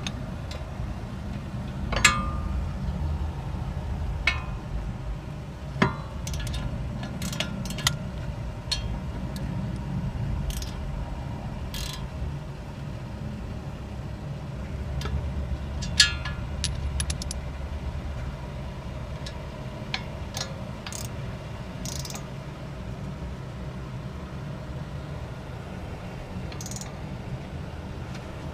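Scattered metallic clinks and clicks of hand tools on the wheel hub assembly bolts as they are snugged up, over a steady low rumble.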